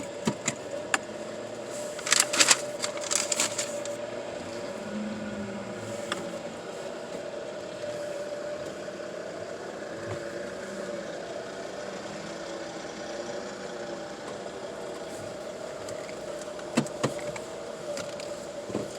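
Car engine running steadily, heard from inside the cabin as a constant hum. A cluster of sharp clicks and crackles comes in the first few seconds, and a couple more near the end.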